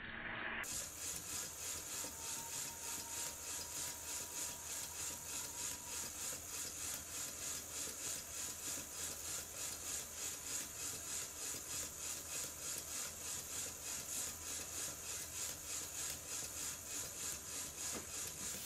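Restored Stuart model beam engine running smoothly on compressed air, with an even, steady exhaust hiss puffing about two to three times a second, alike at both ends of the stroke.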